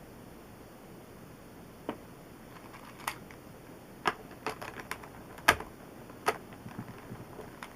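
Plastic speedcube (a Fangshi ShuangRen V2, freshly lubricated with Maru lube) being turned by hand, giving a handful of sharp clacks at irregular intervals. The loudest comes about halfway through.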